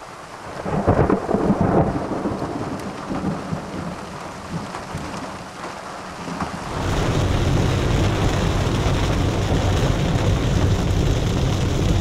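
Thunder rolling, loudest about a second or two in and slowly fading; then, about seven seconds in, the steady hiss of a heavy downpour of rain sets in abruptly.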